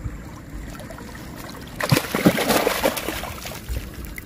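A hooked fish thrashing at the water's surface by the bank: a burst of splashing about two seconds in, lasting over a second.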